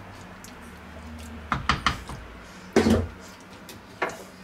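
A few sharp knocks and clatters of kitchen utensils and crockery as the wooden spoon is lifted out of the cast-iron Dutch oven and a plate is set down. The loudest knock comes about three seconds in. A steady low hum runs underneath.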